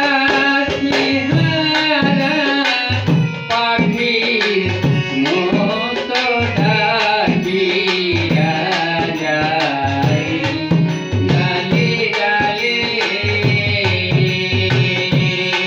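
Instrumental interlude of Bengali Baul folk music: harmonium and violin play the melody over a steady dhol beat.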